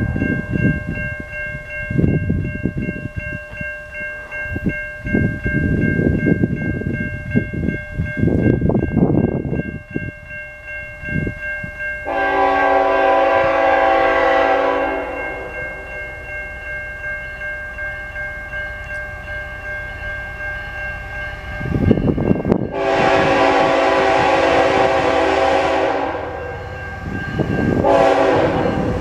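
Air horn of an approaching CN ET44AC diesel-electric freight locomotive sounding a chord: a long blast about 12 seconds in, a longer one about 23 seconds in, and a short one starting near the end, the opening of the long-long-short-long grade-crossing signal. Steady high ringing tones run underneath, with low rumbles in the first half.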